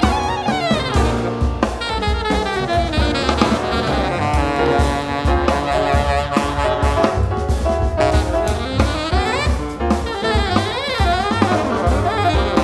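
Live jazz band: alto and tenor saxophones playing moving melody lines together over double bass and drum kit.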